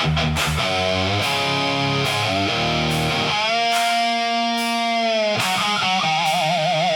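Hard rock instrumental passage: a lead electric guitar plays a melodic solo line. It has sliding notes, a long held note in the middle, and a wide vibrato near the end.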